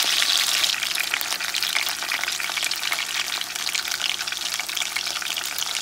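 Boneless chuck roast sizzling as it sears in a stainless steel pan: a steady hiss of hot fat with many fine crackles.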